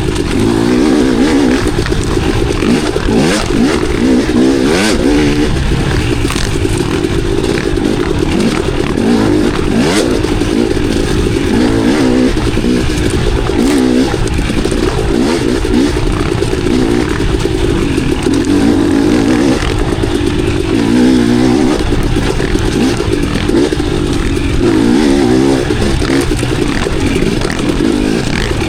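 KTM enduro dirt bike engine running while ridden off-road, its pitch rising and falling constantly with the throttle. A few sharp knocks and clatter cut through, for example about 5 and 10 seconds in.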